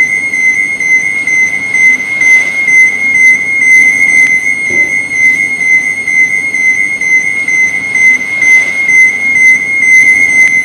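Electronic overload warning alarm: one steady, high-pitched tone held without a break.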